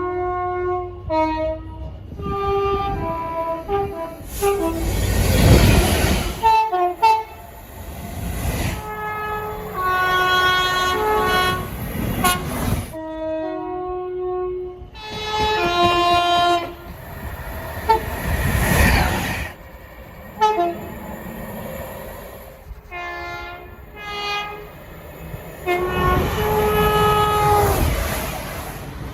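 Train air horns sounding multi-note chords in a series of short and long blasts, several different horns one after another, with the noise of passing trains between them.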